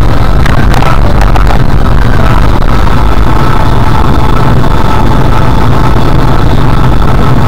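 Steady, loud rumble of a car being driven, heard inside the cabin through a dashcam's microphone: engine and road noise, with a couple of faint clicks about half a second in.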